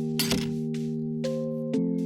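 Background music: held synth-like chords that shift twice near the end, with a few sharp percussive hits over them.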